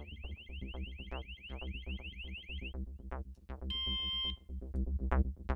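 Exit Stopper door alarm horn sounding an electronic siren of quick rising sweeps, about six a second, that stops a little under three seconds in; the main alarm keeps sounding after the remote horn is switched off. A short electronic beep follows about a second later, over quiet background music.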